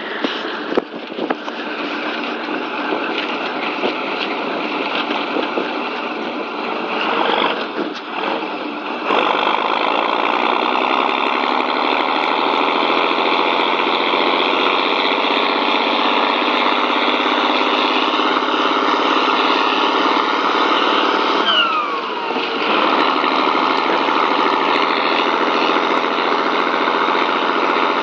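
Land Rover 110/90 turbocharged engine running with no load, with the turbo whistling over the engine note. About a third of the way in the revs step up and the sound gets louder. Past two-thirds a whistle falls in pitch as the revs dip briefly, then they come back up.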